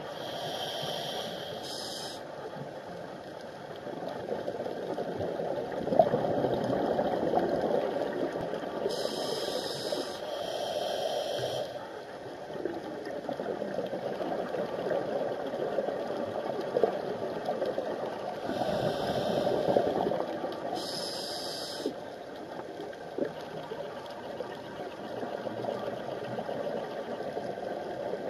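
Scuba diver breathing through a regulator underwater: three inhalations heard as a high hiss in two short pulls each, about nine seconds apart, with the bubbling of exhaled air between them.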